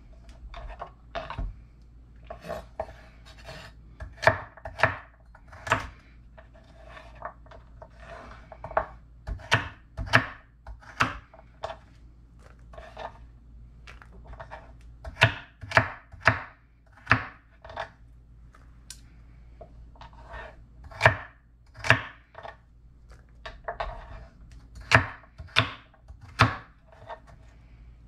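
Kitchen knife chopping baby carrots on a wooden cutting board: sharp knocks of the blade hitting the board, coming irregularly and sometimes two or three in quick succession.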